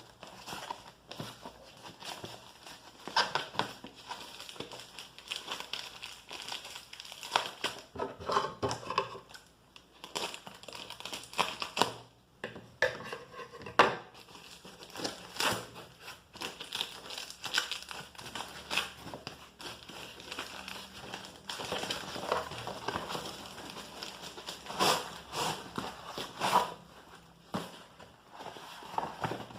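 Packaging being handled and unwrapped: irregular crinkling and rustling with scattered clicks and knocks.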